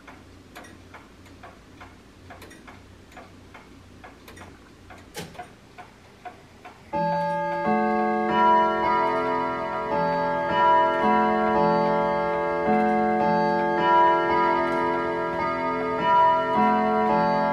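Emperor grandfather clock ticking steadily. About seven seconds in, its chime rods start playing the hour chime melody, a run of overlapping ringing notes that is much louder than the ticking. The movement is chiming on the hour after its repair.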